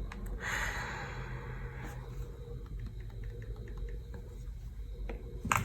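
Handling of a Lightning-to-USB connector and an iPad: a soft breathy rustle early on, scattered light clicks, then a sharper click near the end as the connector is plugged into the iPad's port.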